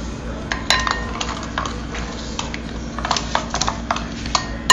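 Metal spoon stirring a thin yeast batter in a glass bowl, clinking and scraping against the glass at irregular moments. One clink rings briefly about a second in, and the clinks come quicker near the end.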